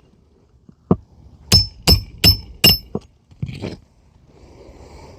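Hammer striking a roof snake shingle-repair tool to drive a roofing nail through the shingle into the roof decking: a light tap, then four quick ringing strikes about three a second, followed by a short rustle.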